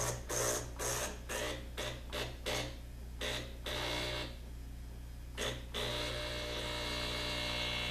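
Saeco Magic Deluxe espresso machine's vibratory water pump running in short bursts, then steadily near the end, pressurising the boiler in technician's mode to test for a leak.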